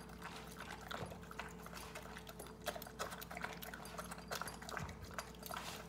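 Giant Schnauzer eating wet stew from a stainless steel bowl: irregular chewing, lapping and clicking sounds.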